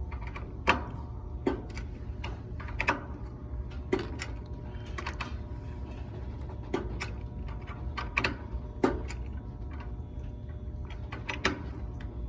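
Irregular sharp metallic clicks and knocks of hand tools and parts being handled on an air-conditioning unit, over a steady machine hum.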